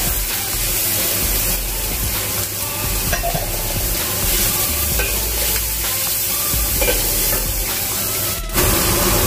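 Chicken, sliced shallots and garlic sizzling in hot oil in a wok, stirred and scraped with a metal spatula. The sound cuts out for a moment near the end, then comes back a little louder.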